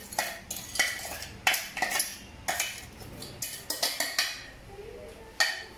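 A metal spoon scraping and knocking inside a stainless-steel mixer-grinder jar as ground rice powder is emptied into a steel bowl. It makes a string of sharp metal clinks and scrapes, about two a second.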